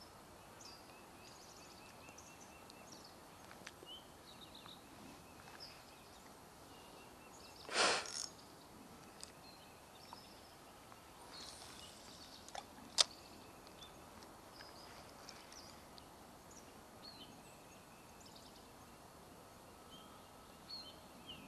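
Quiet outdoor ambience with faint, scattered bird chirps. A brief whoosh comes about eight seconds in, and a single sharp click about thirteen seconds in.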